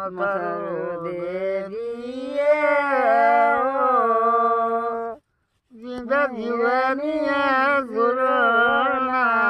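A single unaccompanied voice sings a Pahari folk song in slow, long-held, wavering notes. There are two phrases, with a short breath between them about five seconds in.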